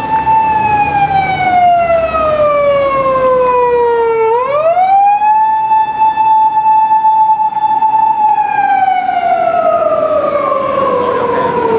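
Emergency vehicle siren wailing: a steady tone that slides slowly down in pitch, sweeps quickly back up about four seconds in, holds, then slides down again near the end.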